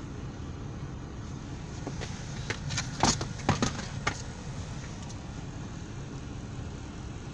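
A Toyota Noah's foot-operated parking brake being worked: a quick run of sharp mechanical clicks and clunks about three seconds in, loudest in the middle. Under it, the low steady hum of the engine idling.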